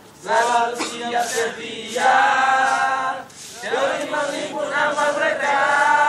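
A group of voices singing a team chant together in unison, with long held notes.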